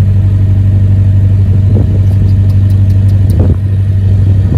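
Narrowboat's diesel engine running steadily at cruising speed, a deep even hum, with a few faint high ticks in the middle.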